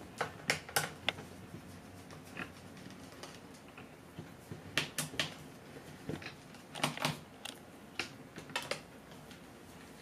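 A small screwdriver working screws out of a laptop's plastic bottom case: scattered light clicks and ticks, some in quick clusters of two or three, as the tip seats in the screw heads and the screws turn and come free.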